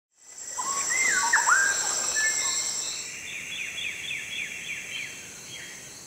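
Rainforest ambience fading in: birds call over a steady high-pitched insect drone, first a few swooping whistles, then a quick run of short descending notes, about five a second.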